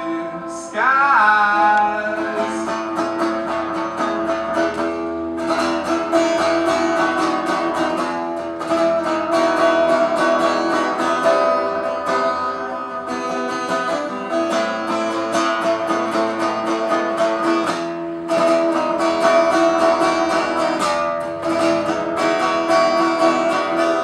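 Acoustic guitar strummed live in a steady rhythm, with a short rising glide about a second in.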